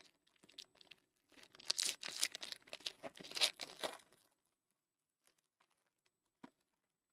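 A trading card pack wrapper being torn open with a crinkling crackle for about three seconds, followed by a few faint ticks and a single soft knock near the end.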